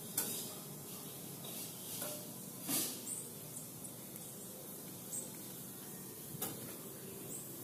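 Faint rustling and a few brief scuffs as a dachshund puppy wriggles on its back and mouths a person's hand, with a few very short high chirps in the background.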